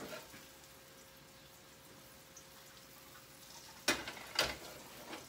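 Butter melting in a frying pan with a faint, steady low sizzle, then about four seconds in two sharp knocks of the metal pan being moved on the electric stovetop.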